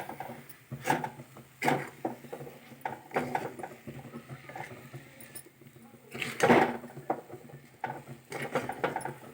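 A spatula scraping and knocking in a kadhai as a thick ground-spice paste is stirred and roasted in ghee, in irregular strokes; the loudest scrape comes about six and a half seconds in. The paste is at the stage where it clumps together and releases the ghee.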